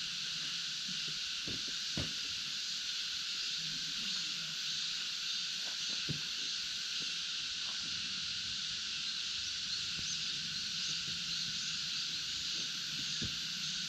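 Steady outdoor chorus of calling animals: a constant high, hissing drone with a few faint clicks scattered through it.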